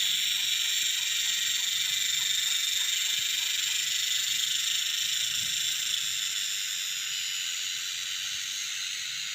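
Cicadas calling in a steady, high-pitched chorus of several shrill tones layered together, easing off slightly in the second half.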